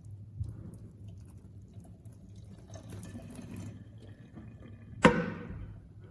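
Water running and dripping into a stainless steel kettle, with a sharp ringing metallic clank about five seconds in.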